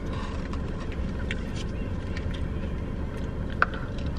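Steady low hum of a car cabin, with faint scattered clicks and mouth sounds of eating and sipping, and one sharp click a little before the end.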